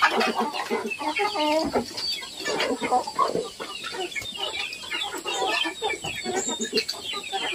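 A flock of Indonesian village chickens (ayam kampung) clucking, with many short calls from several birds overlapping.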